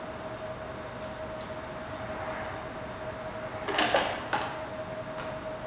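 A few sharp metal clinks and knocks about four seconds in, as a T-handle wrench is taken off a screw in a steel stud hole plug and handled, over a steady high-pitched hum.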